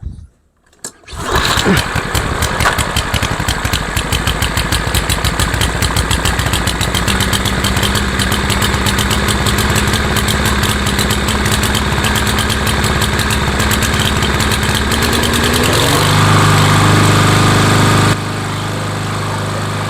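PowerMore 140cc single-cylinder mower engine pull-started, catching about a second in and running unevenly. About 16 s in it picks up speed and settles into a steadier run. The rough running is blamed on a lazy automatic choke that is slow to open.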